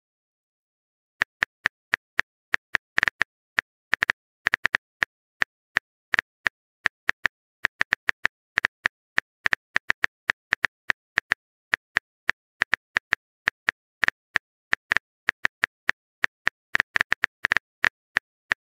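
Phone keyboard typing clicks from a texting-story app: short, sharp taps at about four a second, unevenly spaced, starting about a second in.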